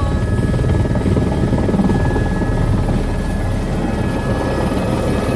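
Helicopter rotor and engine running steadily, heard from inside the cabin as it comes in to land, with a thin steady whine above the low rotor rumble.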